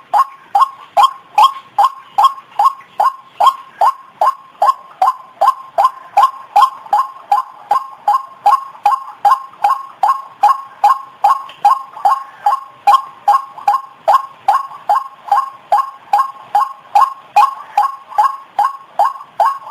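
White-breasted waterhen (ruak-ruak) call, a short falling note repeated steadily about two and a half times a second, played as a lure call to draw the birds in.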